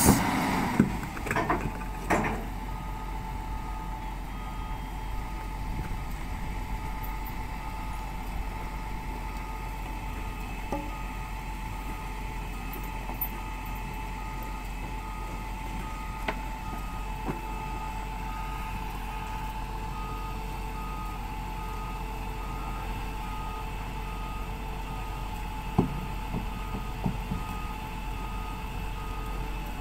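Heavy equipment's reversing alarm beeping steadily at one fixed pitch over a diesel engine running. A couple of sharp knocks in the first few seconds, and a few more near the end.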